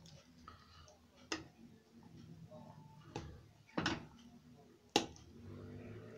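A spoon knocking and scraping against a saucepan while thick gravy with meatballs is stirred: a few separate knocks, the sharpest about five seconds in.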